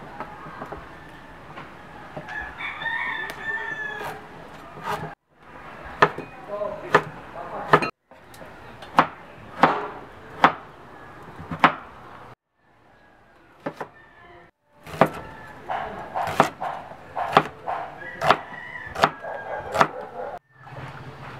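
Cleaver chopping on a wooden cutting board, sharp knocks about once a second, with a rooster crowing in the background. The sound breaks off briefly several times.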